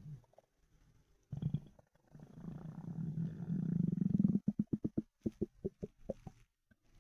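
A hungry, empty human stomach growling. A short gurgle, another about a second in, then a long low growl that swells for about two seconds and breaks into a quick run of gurgling pulses, about five a second, before stopping.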